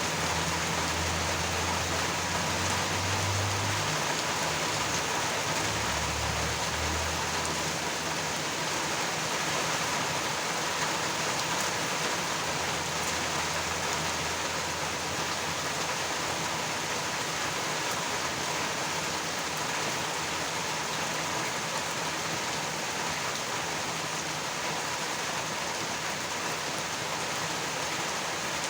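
Steady rain falling, an even hiss of drops throughout. A low rumble, typical of distant thunder, sounds under the rain for the first several seconds and fades out about seven seconds in.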